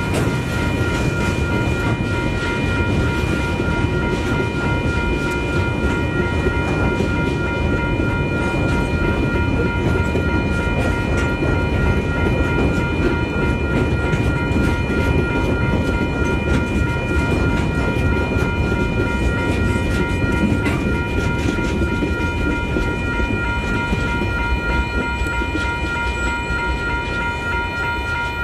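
Freight train of container wagons rolling past at close range: steady rumble and rapid wheel clatter over rail joints, under a steady high-pitched whine.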